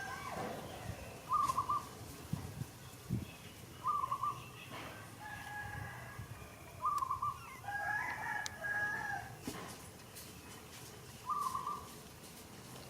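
Animal calls: a short, fluttering chirp repeats every few seconds, with a couple of longer, higher calls about halfway through.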